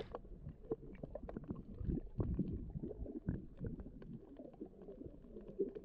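Muffled underwater sound picked up by a submerged camera: low gurgling and bubbling water with many small clicks and pops scattered through it.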